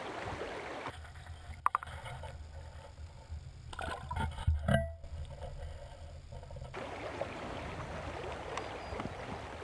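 River current flowing and rippling around a wading angler. For several seconds in the middle the sound is heard from underwater: a muffled low hum of the current with a few sharp knocks and gurgling splashes.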